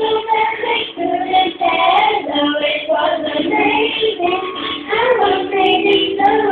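A children's song: a high, child-like voice singing a melody over music.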